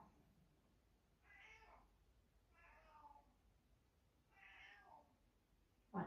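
Three faint, short animal calls, each about half a second long and over a second apart, in an otherwise near-silent room.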